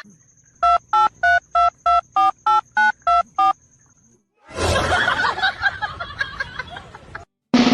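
Telephone keypad dialing tones: ten short two-note beeps, about three a second, as a number is dialed. About a second after the last beep comes a few seconds of noisy, jumbled sound.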